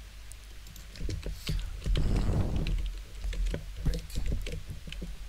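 Clicking keys of a computer keyboard as a short HTML tag is typed into a code editor, with a brief louder rustling noise about two seconds in.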